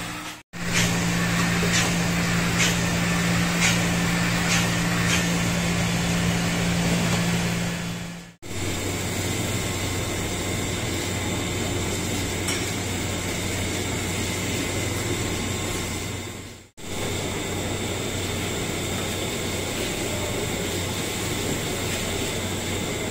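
Steady hum of a parked electric commuter train's onboard equipment, broken by two brief cuts. In the first stretch short spray hisses come about once a second, as disinfectant is sprayed inside the car. Later the hum goes on under a steady hiss while the outside of the carriages is washed down with water hoses.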